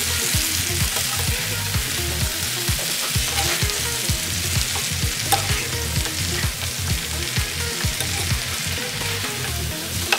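Pork steak sizzling in a non-stick frying pan while a utensil stirs and turns the meat, knocking and now and then clicking against the pan.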